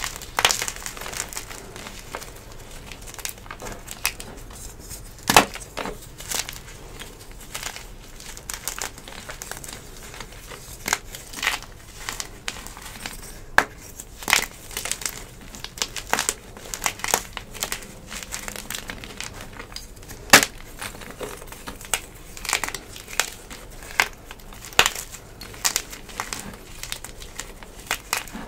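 A fresh dyed gym chalk block crushed and crumbled by hand: irregular dry crunching and crumbling throughout, with several sharp snaps as chunks break apart.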